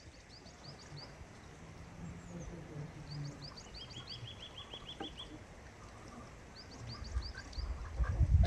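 Small birds chirping in runs of short, high, repeated notes, with a quick trill in the middle, in a rural poultry yard. An irregular low rumble near the end is the loudest sound.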